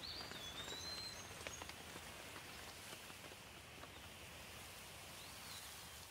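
Steady rain falling, with a few separate drops landing in the first couple of seconds. A bird gives a short whistled call that glides down and back up at the start, and calls again briefly near the end.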